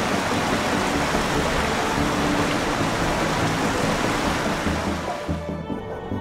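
A steady rushing noise like flowing river water, layered over background music with a stepping bass line; the rushing fades out about five seconds in, leaving only the music.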